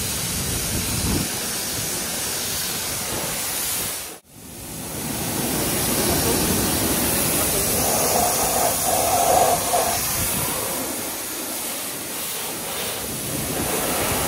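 High-pressure washer lance spraying water onto the car's paint and wheel, rinsing off the foam: a steady hissing jet that breaks off for a moment about four seconds in.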